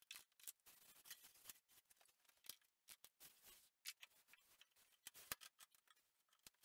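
Near silence broken by faint, irregular small clicks and taps from hands handling a metal benchtop table saw and its pull-out extension.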